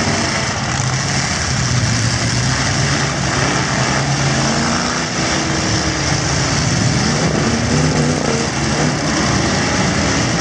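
Several V8 pickup and SUV engines of demolition-derby trucks running and revving together, pitch rising and falling as the trucks accelerate and back up.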